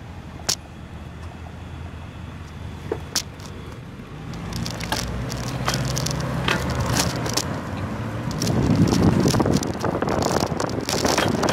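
Bicycle pulling away from a stop in city traffic: a few sharp clicks while stopped, then rattles and crackles from the bike over rough pavement, with wind and road noise building as it picks up speed. A car engine's low hum runs alongside in the middle.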